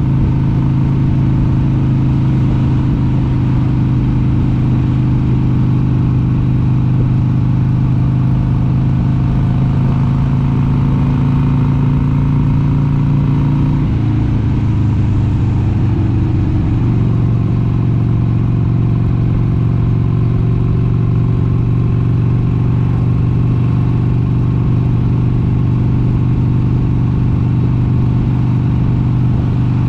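1996 Harley-Davidson XLH883 Sportster's air-cooled 883 cc V-twin running under way at a steady cruise. Its note drops about halfway through, wavers for a few seconds, then holds steady at a slightly lower pitch.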